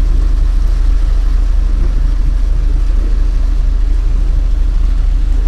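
Loud, steady low drone of a cruise ship's machinery heard on the open deck. The speaker takes it for the ship's engine or funnel nearby and calls it very noisy.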